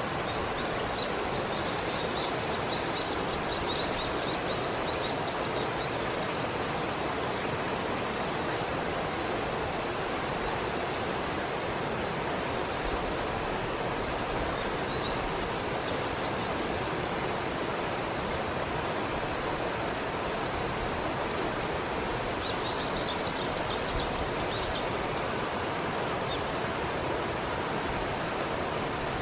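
Steady outdoor ambience of insects: a continuous high-pitched drone that never lets up, over an even background hiss, with a few faint short chirps here and there.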